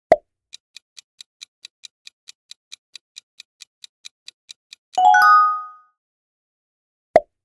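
Quiz countdown-timer sound effect: a short thud, then faint, even clock-like ticks about four to five a second, ending about five seconds in with a loud bright chime that marks the answer reveal. A second short thud comes near the end.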